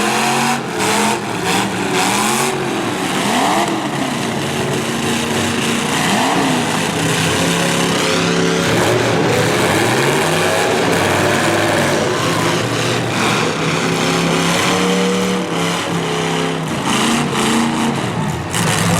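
Several V8 demolition derby car engines revving up and down at once, overlapping one another. A few sharp impacts come near the start and again near the end.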